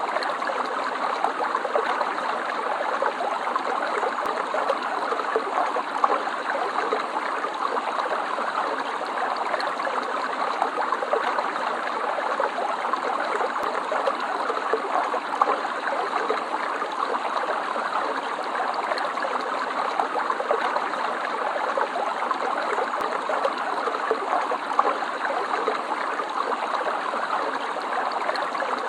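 Stream water flowing and trickling steadily, a continuous babbling with small splashy flickers.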